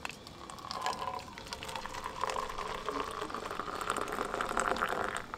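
Water being poured into a vessel, a steady trickling stream whose tone rises slightly and grows louder as the vessel fills.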